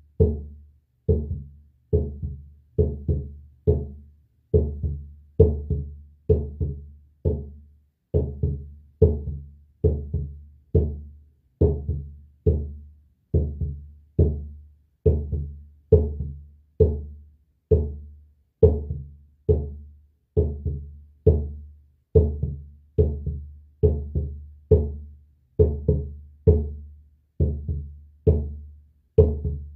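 Shamanic drumming: a drum struck by hand in a steady beat of somewhat under two strokes a second, some strokes falling in close pairs. Each stroke is deep and dies away over about half a second.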